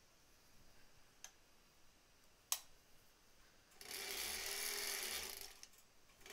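Late-1930s sewing machine running in one short burst of stitching, about a second and a half long, starting a little past the middle. Before it come two sharp clicks, the second louder.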